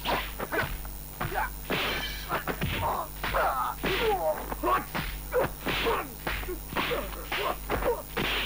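Kung fu film fight sound effects: rapid swishing strikes and punch thwacks, several a second, with short grunts and cries from the fighters in the middle.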